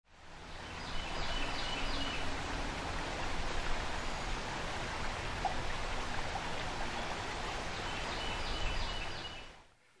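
Shallow stream flowing over a rocky riffle, a steady rush of water that fades in over the first second and fades out near the end.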